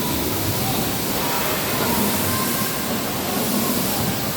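Hydraulic pipe-cutting machine running, a steady loud rushing noise with a faint wavering whine.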